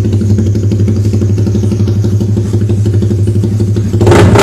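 A Suzuki Raider 150's single-cylinder four-stroke engine idling loudly through an aftermarket exhaust, a steady, rapid burble. Near the end a sudden, louder, harsher sound cuts in.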